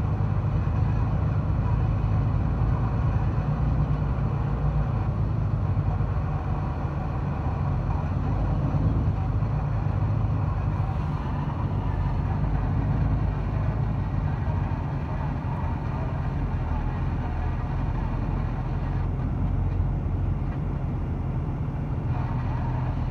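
Semi-truck's diesel engine running steadily, a low drone heard from inside the cab, with road noise as the truck rolls slowly in traffic.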